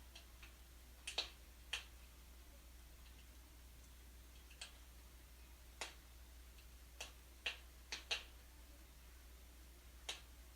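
Wood fire burning in a fireplace, crackling with sharp irregular pops and snaps, about a dozen scattered unevenly, over a faint steady low hum.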